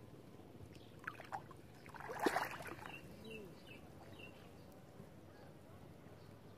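Water splashing briefly about two seconds in, preceded by a couple of light knocks.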